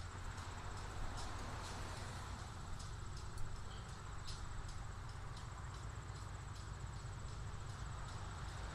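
Old steel P70 passenger car rolling slowly on a rusty siding track: scattered light clicks and knocks over a low rumble, the sharpest click about three and a half seconds in. Insects trill steadily behind it.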